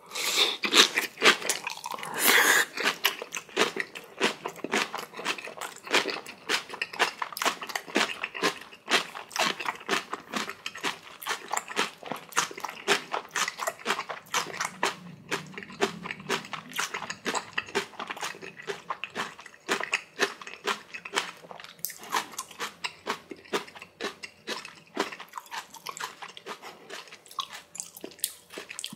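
Crisp crunching and chewing of spicy kimchi, many crunches a second, with a louder bite about two seconds in.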